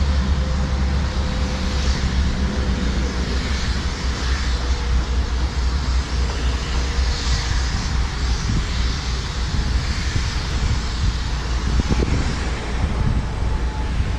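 Wind buffeting the microphone: a steady, fluttering low rumble with an even hiss over it.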